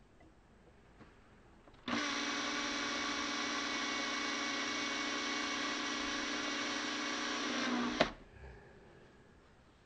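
Makita 18V cordless drill/driver running at a steady speed for about six seconds, turning a screw in the base plate of a bench grinder, then stopping with a sharp click.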